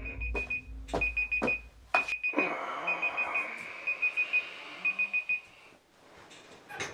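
Electronic alarm clock beeping in quick groups of four, about once a second, stopping after about five and a half seconds. A few sharp knocks and rustling of bedding from someone stirring in a bunk bed.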